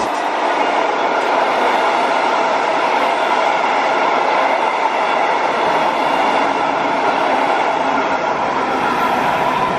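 Passenger coaches of an express train rolling past on the electrified line, with a steady, continuous noise of wheels running on the rails.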